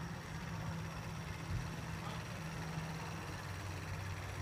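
Garden-railway model Class A Climax locomotive running along the track: a steady low motor-and-gear hum that drops in pitch about three seconds in.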